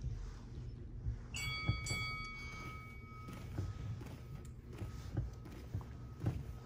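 Bare feet thudding softly on foam dojo mats, roughly once or twice a second, during knee raises. A ringing tone with several steady pitches starts about a second and a half in and fades slowly.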